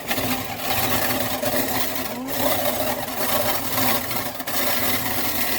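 Small electric kitchen appliance motor running steadily and loudly, used to mix the egg batter.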